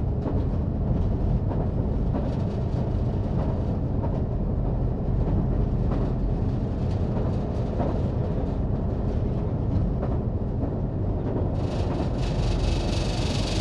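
Diesel multiple unit running at speed along the track: a steady low rumble with scattered faint clicks from the wheels. A high shrill buzz joins it near the end.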